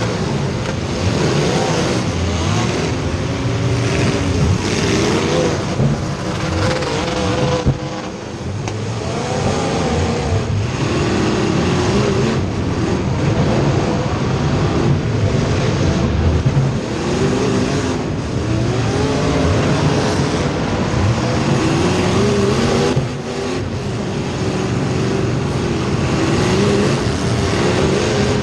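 Race car engines at racing speed: several engines overlap, each repeatedly revving up and falling off in pitch as the cars accelerate and lift around the track.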